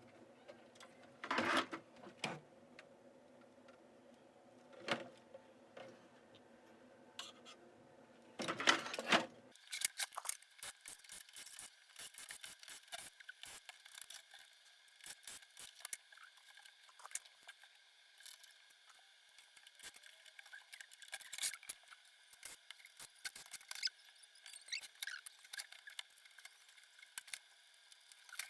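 Small clicks, taps and rattles of projector parts being handled during disassembly. A low steady hum runs under the first third, then stops abruptly and a fainter, higher steady tone continues beneath denser clicking.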